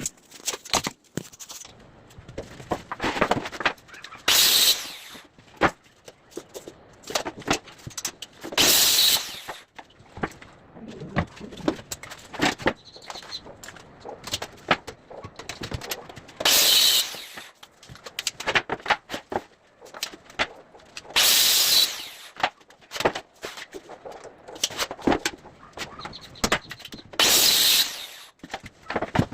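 Carpentry work on a kitchen drawer: five loud bursts of about a second each, spaced several seconds apart, with many short clicks and knocks between them.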